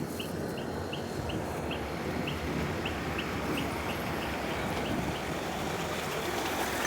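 Bonfire of wet firewood and charcoal burning with a steady rushing crackle. Over it comes a run of short, high chirps that slow down gradually over the first five seconds or so.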